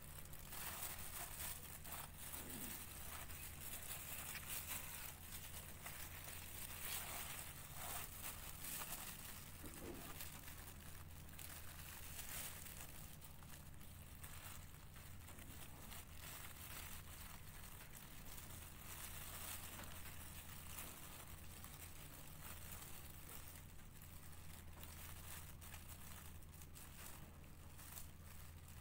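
A clear plastic bag worn over a hand and tissue paper rustling and crinkling on and off, busier in the first half, over a steady low hum.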